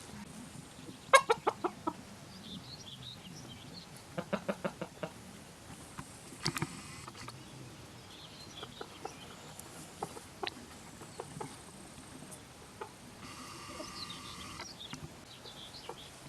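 Chicken clucking in two quick runs of short clucks, one about a second in and another about four seconds in, with a few single clucks and clicks after.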